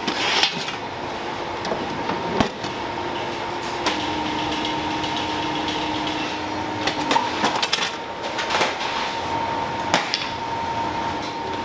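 Metal cake pans clanking as they are handled, a few sharp knocks, the clearest about two and a half seconds in and near ten seconds, over a steady machine hum.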